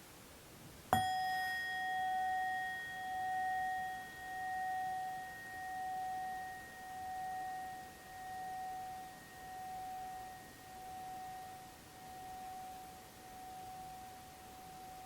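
A bell-like instrument struck once, ringing out in a long, clear tone that slowly decays with a steady pulsing waver, about one pulse a second and a bit.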